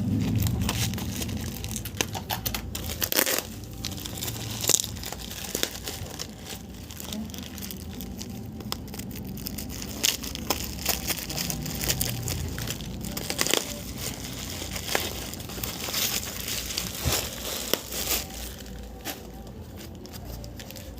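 Parcel packaging being torn open and crinkled by hand, with irregular sharp crackles throughout.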